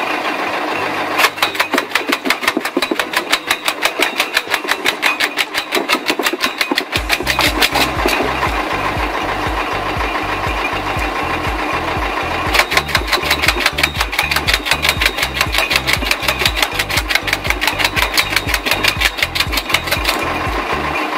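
Tractor-PTO-driven homemade wood-processing machine running, with a fast, even mechanical clatter. It eases off for a few seconds in the middle, then picks up again as wood is fed in.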